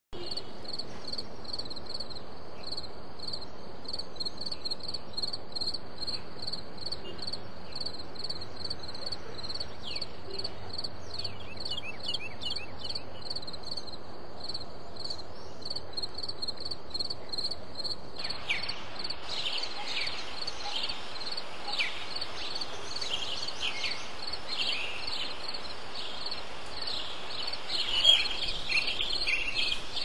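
Steady, high-pitched, evenly pulsing insect chorus. From a little past halfway, many short falling bird calls join it, busiest and loudest near the end.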